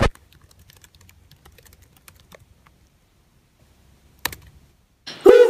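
Typing on a MacBook Air laptop keyboard: soft, quick key clicks for about two seconds, then quiet. A single sharp knock a little over four seconds in, and music starts just before the end.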